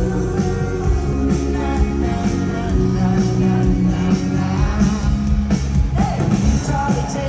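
Live band playing a country-pop song with a woman singing lead into a microphone, heard from the crowd in a large arena over the PA.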